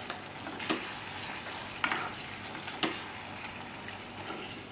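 Chicken pieces frying in a thick yoghurt and chilli gravy in a non-stick kadhai, a steady sizzle, while a spatula stirs them, knocking sharply against the pan three times.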